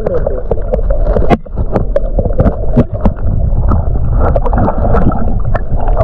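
Stream water sloshing and gurgling right at the microphone, with many sharp knocks and splashes.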